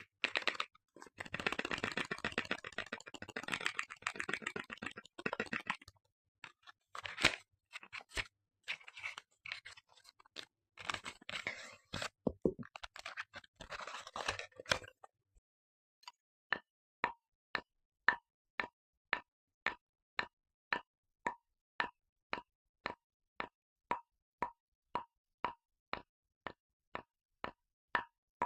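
Household objects used to make sound effects: dense crackly crunching for about fifteen seconds, then after a short pause a steady series of short plops with a slight pitch, about two a second.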